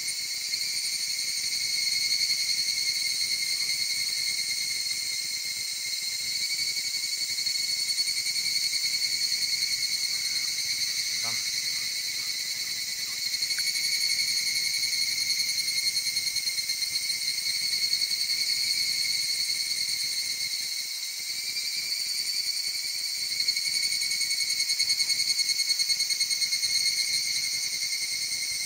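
Loud, steady chorus of shrilling insects, a high ringing drone that swells and eases a little every few seconds.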